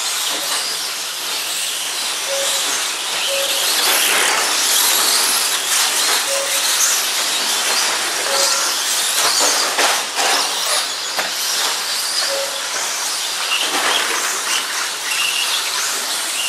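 Several radio-controlled 2WD short-course trucks racing on a dirt track: a steady high hiss of motors and tyres, with short high whines as the trucks accelerate past.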